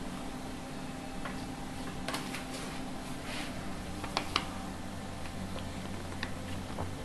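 Two kittens wrestling on a metal wire rack: scattered light clicks and scratches of claws and paws on the wires and fabric, the sharpest pair about four seconds in, over a steady low hum.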